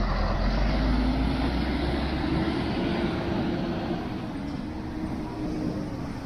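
Diesel engine of a double-decker intercity coach pulling away with a deep rumble, loudest in the first seconds, then fading as the coach moves off.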